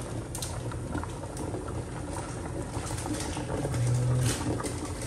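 A steel pot of lentils and vegetables in water bubbling and crackling as it heats on the stove, with a brief low hum about four seconds in.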